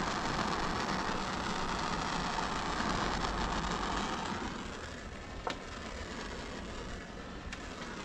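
Handheld gas torch burning with a steady hissing flame, shrinking the heat-shrink sleeve on a wire's crimp terminal. The hiss quietens about four and a half seconds in, and a sharp click follows about a second later.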